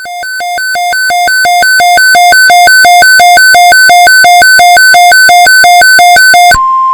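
Weather radio alert alarm: a loud electronic tone alternating rapidly between a low and a high pitch, about three low-high cycles a second, growing louder over the first two seconds. Near the end it switches to one steady tone, the weather radio warning alarm tone that announces a Tornado Watch.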